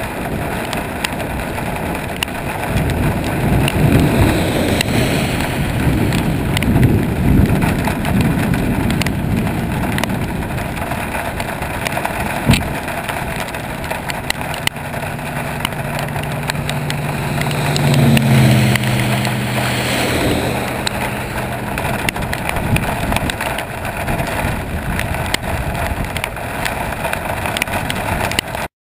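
Rain and wind rushing over a GoPro in its waterproof housing on a moving vehicle, a dense steady noise with road noise underneath. A low steady hum comes in about halfway through and fades out again, and there is one sharp tap a little before that.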